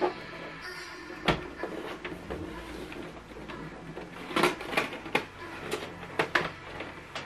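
Plastic clicks and knocks of an HP DeskJet 3750 printer being handled: its covers and trays moved and the body shifted on the table. One sharp knock comes about a second in, and a quick run of several more between about four and six and a half seconds.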